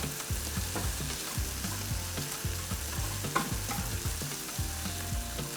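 Vegetables sizzling as they sauté in a hot pan, being stirred, with a few short clicks.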